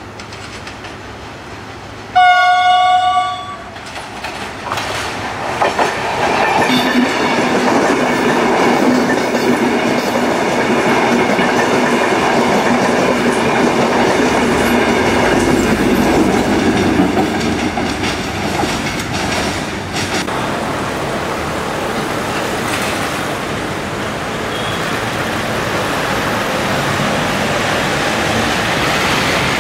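A train horn sounds one loud blast of about a second, about two seconds in. Then a passenger train rolls past with a steady rumble and wheel clatter that goes on.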